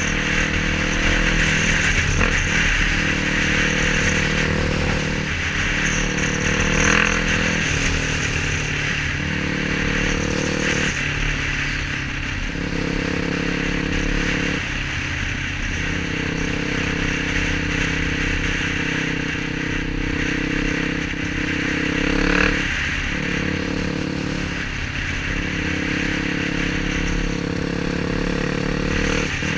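Yamaha WR426F's four-stroke single-cylinder engine running under way, its note shifting and dropping out briefly several times as the throttle changes, with wind noise rushing over a helmet-mounted microphone.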